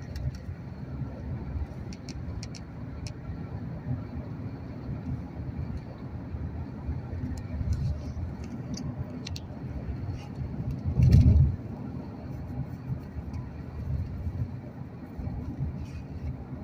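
Road and engine noise of a moving car heard from inside it: a steady low rumble, with a brief loud rush about eleven seconds in.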